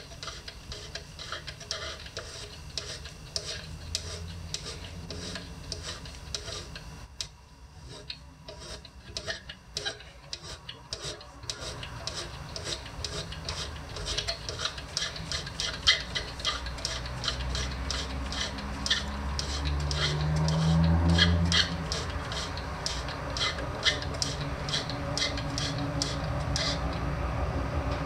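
Brass worm-gear burr-adjustment mechanism of an Ascaso i1 iSteel coffee grinder being turned, clicking steadily about three times a second. A low rumble underneath grows louder and is strongest about three quarters of the way through.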